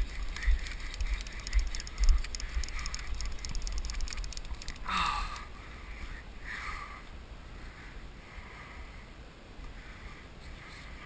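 Wind buffeting the microphone, with handling knocks, for the first few seconds. From about two and a half seconds in, a fast, even run of fine clicks: the click drag of a fly reel as line moves on a hooked snook. Near the middle come a couple of short scuffing noises, and then it turns quieter.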